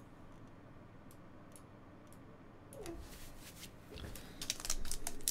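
A few faint clicks, then from about four seconds in a foil pack of Upper Deck Ice hockey cards crinkles as it is picked up and handled, growing louder toward the end.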